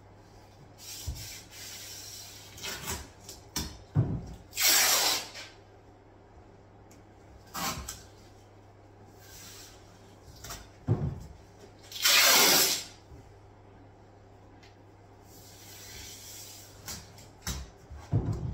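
Masking tape being pulled off the roll in several short ripping pulls, each about half a second to a second long, and pressed down onto a laminate worktop, with a few knocks between them.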